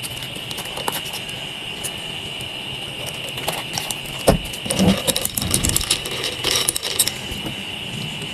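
Clinks, taps and knocks of a tall glass of iced coffee being handled on a table, with ice cubes and a spoon knocking in the glass. A sharp knock comes about four seconds in, then a run of clinks and rattles, over a steady faint high whine.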